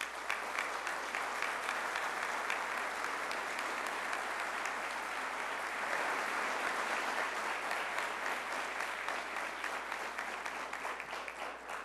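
A large audience applauding: many hands clapping in a dense, steady patter that dies away near the end.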